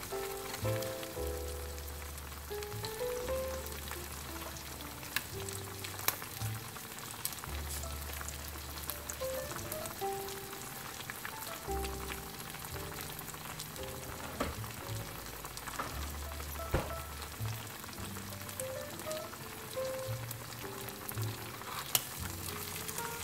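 Shrimp and vegetables sizzling in oil in a nonstick frying pan, with a few sharp clicks of the stirring utensil against the pan. Background music with a simple melody and bass notes plays over it.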